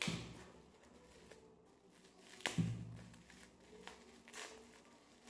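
Clear plastic packaging being torn and crinkled open by hand and teeth. There is a sharp rip at the start, a louder snap about two and a half seconds in, and a few lighter crinkles near the end.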